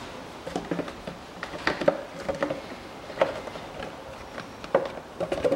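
Thin empty plastic bottle crinkling and crackling in the hands as it is handled, in a string of irregular sharp clicks.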